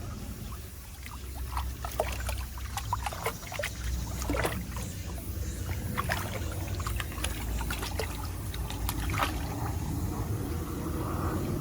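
Mountain stream water trickling and splashing, with many small splashes over a steady low rumble.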